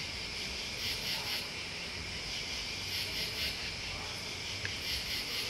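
Night chorus of crickets and other insects: a dense, high-pitched trilling that swells in short pulses about every two seconds.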